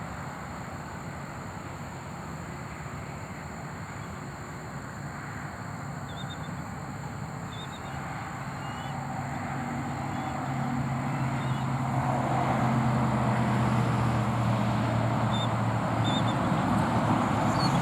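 Road traffic: a vehicle's engine hum that grows steadily louder through the second half as it approaches. A few faint, short, high bird chirps sound over it.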